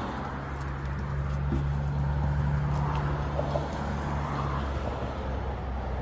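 A motor running steadily with a low hum; its upper tones drop away about four and a half seconds in.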